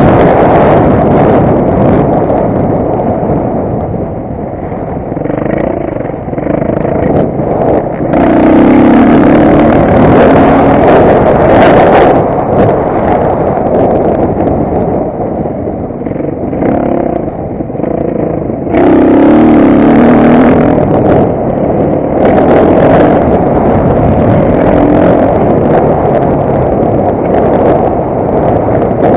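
Motocross bike engine revving hard and easing off again and again, with repeated knocks and rattles from the bike over rough ground.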